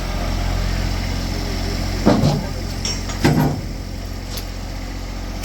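Tractor engine running steadily, with two loud thuds about two and three seconds in and a couple of lighter knocks.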